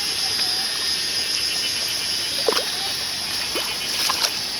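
Steady high-pitched insect chirring over an even hiss of rain, with a few short chirps about halfway through and near the end.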